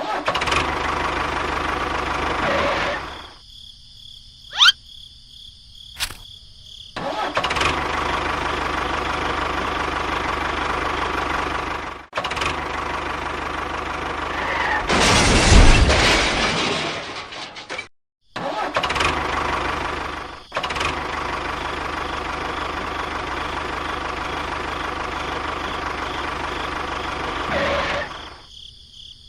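Small motor-driven machine running steadily, in several clips cut together with abrupt breaks. It swells louder for a couple of seconds near the middle.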